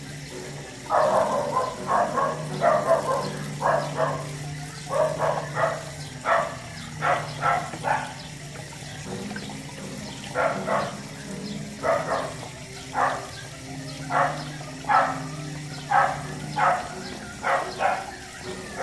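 Small dog barking in a long run of short, sharp barks, a few a second, with a pause of about two seconds midway.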